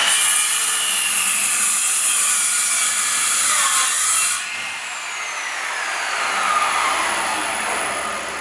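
GALAX PRO 185 mm circular saw (1200 W, 24-tooth blade) ripping through a rough wooden plank, its whine wavering in pitch under load. About four seconds in the cutting noise stops and the saw runs on more quietly, its whine slowly falling.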